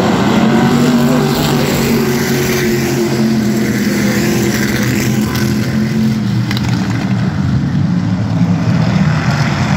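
A pack of vintage-class dirt-track race cars running at speed, several engines heard at once, their pitches wavering as the cars pass.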